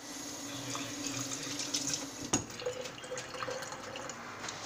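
Kitchen tap running into a sink, a steady rush of water, with a single sharp knock a little over two seconds in.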